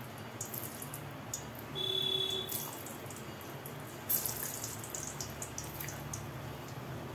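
Whole bitter gourds (karela) slid one after another into hot oil in a kadhai, the oil sizzling and crackling around them; the sizzle grows louder about four seconds in as more gourds go in.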